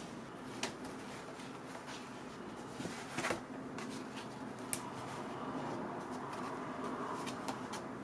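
Folded sheets of watercolour paper being handled, with soft rustles and a few light taps, over a steady low hiss.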